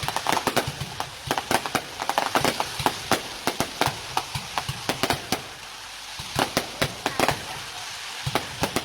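Fireworks going off in rapid, irregular cracks and pops. They thin out for a moment a little past the middle, then pick up again.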